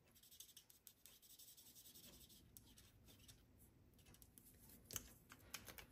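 Faint scratching of a Stampin' Blends alcohol marker's tip stroking back and forth over cardstock as a stamped image is coloured in, in quick short strokes.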